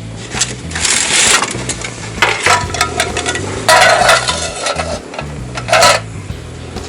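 Background music with a steady bass beat, under three short, loud noises from cooking preparation about one, four and six seconds in.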